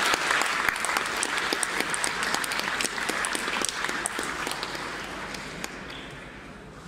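Audience applause, many hands clapping, fading away steadily.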